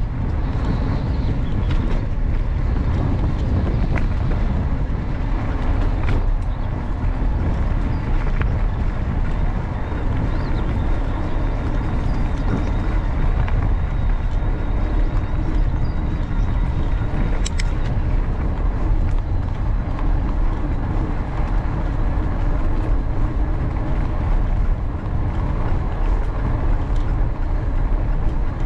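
Steady wind rumble on the microphone and tyre noise from a mountain bike rolling along a towpath, with a few sharp clicks from bumps.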